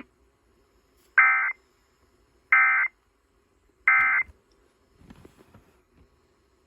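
Emergency Alert System end-of-message signal over FM radio: three short, buzzy bursts of SAME digital data tones, a little over a second apart, marking the end of the alert.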